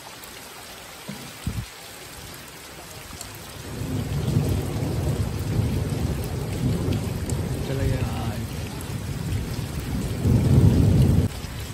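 Steady rain falling on a wet road. About four seconds in, a low rumble of thunder sets in, grows loudest near the end, then drops away abruptly.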